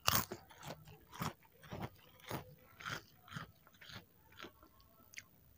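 Close-up chewing of a crisp kerupuk cracker: a steady run of crunches about twice a second, growing fainter toward the end as it is chewed down.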